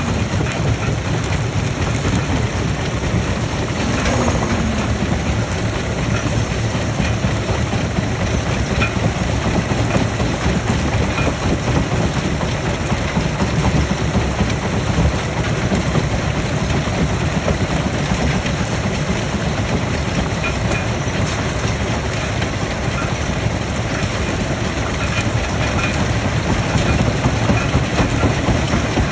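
Stone crushing machine running with rock going through it: a steady low rumble with a dense, continuous clatter, growing slightly louder near the end.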